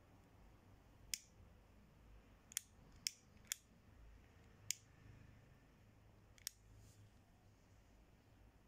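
Small metal clicks from an all-metal Cohiba torch lighter being handled and turned over in the hand: about six short, sharp clicks spread over several seconds, with near silence between them.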